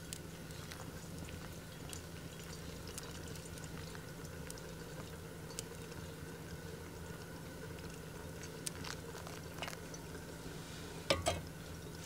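Hot water poured onto coffee grounds in a paper-filter dripper, a soft liquid trickle, with small crackles from a wood fire. A pair of sharp knocks comes about eleven seconds in.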